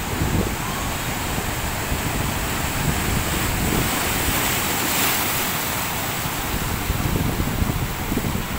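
Sea surf breaking and washing up in the shallows, a steady rushing that swells about halfway through, with wind buffeting the microphone.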